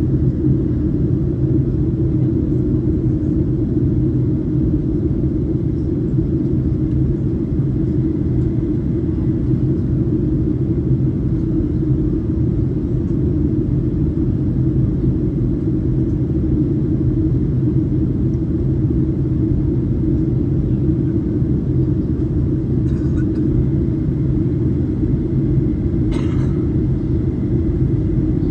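Steady low drone of a Boeing 737-800's CFM56-7B engines and airflow, heard inside the cabin, with a brief click near the end.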